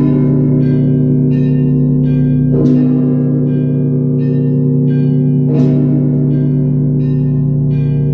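Russian Orthodox church bells rung together: a deep heavy bell struck about every three seconds, twice in this stretch, with its low hum ringing on between strokes, while smaller bells strike a quick pattern of several notes about twice a second above it.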